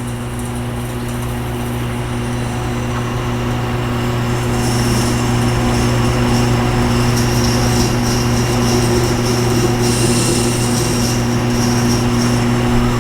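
Tormek T-8 sharpener's motor running with a steady hum while a Leatherman blade is worked on the turning wheel, folding the burr over to the other side. A hiss of steel on the wheel comes and goes, and the sound grows louder over the first few seconds.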